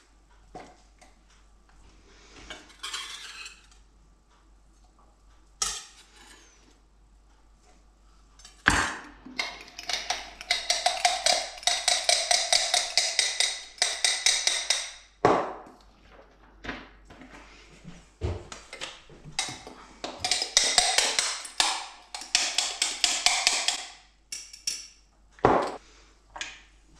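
Eggs being beaten in a small glass bowl: a utensil clinks rapidly against the glass in two spells of several seconds each. A few single knocks come before, between and after the spells.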